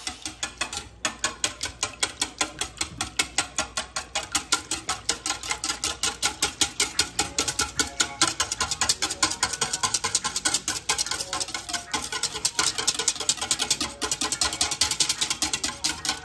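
Wire whisk beating a buttermilk-and-egg batter in a stainless steel bowl: a fast, steady clatter of the wires striking the metal, about six strokes a second.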